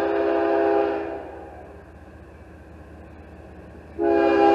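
CSX freight locomotive's air horn sounding a chord of several notes: one blast ends about a second in, and after a gap of about three seconds a second blast begins near the end. A steady low rumble from the approaching train runs underneath.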